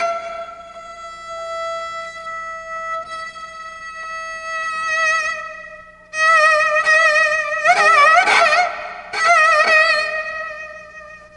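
Bowed string instrument playing a slow melody in a Korean pansori-fusion instrumental: soft, long held notes at first, then about halfway through louder notes with wide vibrato and quick ornamented runs.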